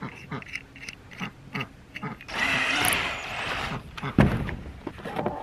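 Small metal clicks as a hole saw is handled on its arbor, then the chuck of a DeWalt cordless drill is tightened onto the hole saw arbor with a rattling whirr lasting about a second and a half, followed by a sharp knock.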